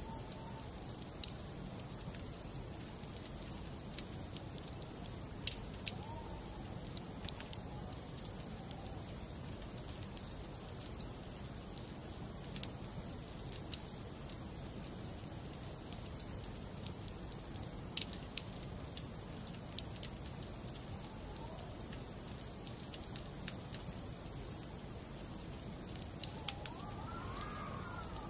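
Wood fire burning in a fireplace: a steady low rumble with sharp, irregular crackles and pops from the logs. A faint wavering whistle rises near the end.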